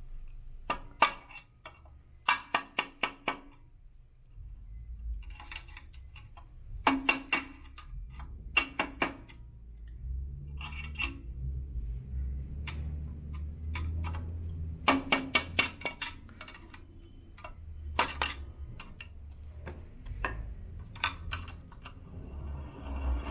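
Rubber mallet driving a flathead screwdriver against the grooves of an elliptical's one-piece crank fitting to loosen it: bursts of several quick, ringing metal taps, repeated about eight times with pauses between.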